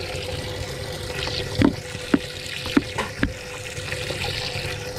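Water sloshing in a bass boat's live well as a hand reaches in among the fish, with about five sharp knocks and splashes in the middle and a steady hum underneath.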